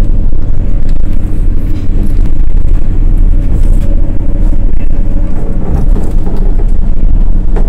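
Running noise inside a moving Iyonada Monogatari diesel railcar: a loud, steady low rumble of engine and wheels on the rails.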